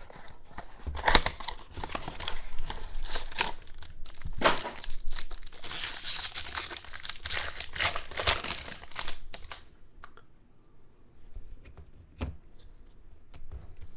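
Plastic packaging crinkling and tearing as a sealed trading-card box is opened, dense for most of the stretch and then thinning to scattered rustles and clicks near the end.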